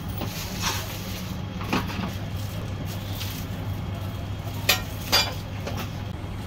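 A few sharp knocks of a cleaver and utensils against a cutting board and steel trays, the two loudest close together about two-thirds of the way in, over a steady low hum.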